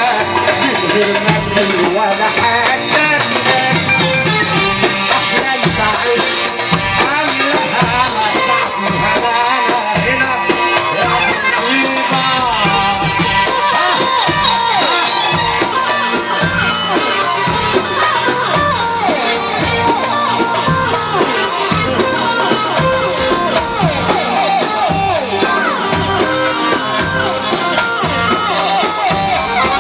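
Live instrumental music with no singing. A lead melody slides up and down in pitch over a fast, steady percussion beat with jingling tambourine.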